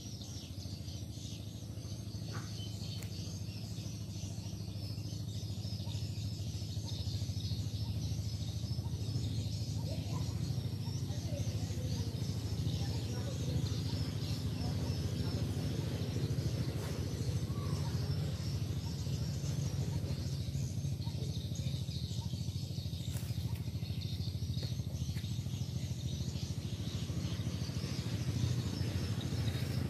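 Outdoor riverside ambience: a steady low hum that grows slowly louder, with high chirping over it.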